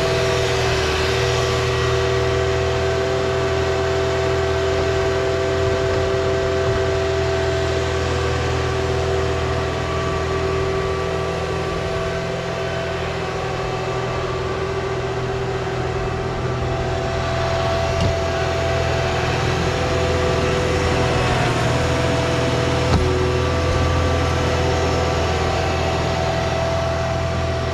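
A diesel engine running steadily at a constant speed, with a couple of short knocks about two-thirds of the way through.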